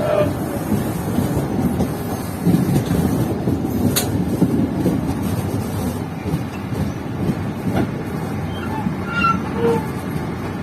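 Passenger train running, a steady rumble with one sharp click about four seconds in.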